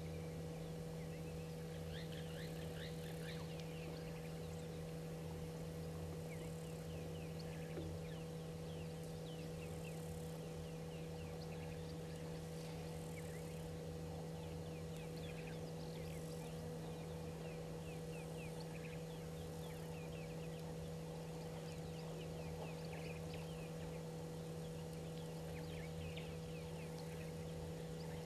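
Birds chirping and calling in many short, quick notes, scattered throughout, over a steady low hum.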